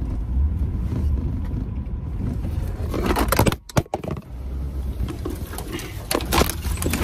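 Off-road SUV engine running with a low rumble as it reverses out of deep snow. About three seconds in, and again around six seconds, there are bursts of scraping and clattering, consistent with branches dragging along the body.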